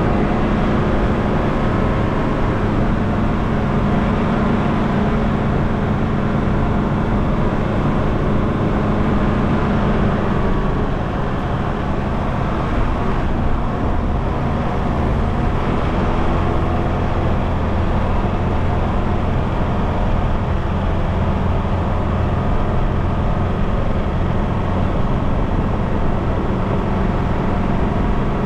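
Mitsubishi Challenger four-wheel drive running steadily as it is driven up a dirt trail, heard close to the front of the vehicle with road and wind noise over the engine hum. The engine note drops about eleven seconds in and rises again near the end.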